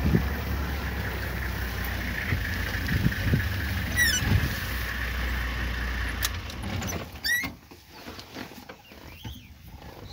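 Open safari vehicle's engine idling with a steady low hum, then switched off about seven seconds in, leaving it much quieter.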